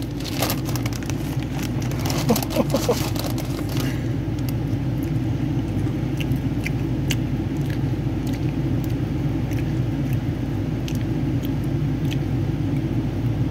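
A plastic Skittles bag crinkles and crackles for the first few seconds as it is opened, then a few scattered small clicks follow. Under it all runs a steady low rumble.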